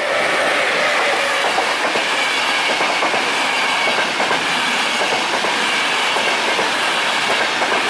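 ÖBB Eurocity passenger coaches passing close at speed: a steady loud rush of wheels on rail with a continuous rapid clatter, and a thin high squeal from the wheels on the curve.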